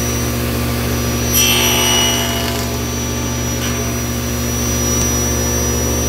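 Table saw running steadily, its blade cutting into a wooden stop block for about a second, starting roughly a second and a half in, trimming a flat reference edge on it.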